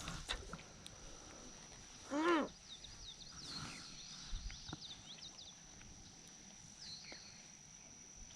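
Outdoor ambience of small birds chirping in quick short notes over a steady high-pitched hum, with one loud short call about two seconds in that rises and then falls in pitch.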